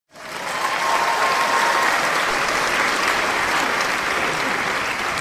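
A crowd applauding: many hands clapping at once, coming in suddenly and swelling to full strength within about a second, then holding steady.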